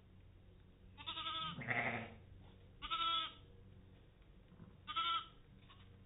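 Newborn Katahdin lambs bleating high and short, three times about two seconds apart. A brief rougher, lower sound follows the first bleat.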